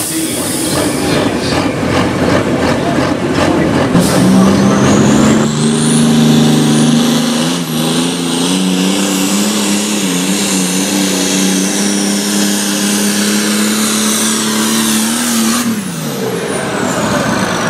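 John Deere pulling tractors' turbocharged diesel engines at full throttle hauling a weight sled down the track. After about four seconds one engine holds a steady, loud note with a high whine rising and falling above it, then winds down near the end.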